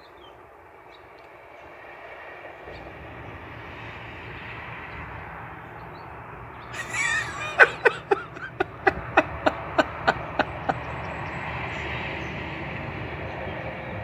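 A run of about nine sharp, evenly spaced animal calls, roughly three a second, over a steady low rumble that sets in about three seconds in.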